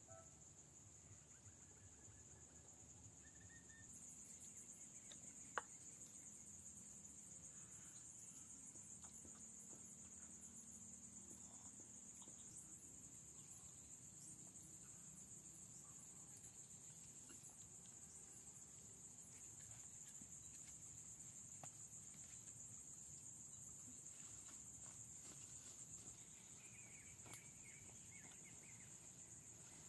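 Faint, steady, high-pitched insect chorus that grows fuller about four seconds in. A single sharp click comes about five and a half seconds in, and faint bird chirps are heard near the end.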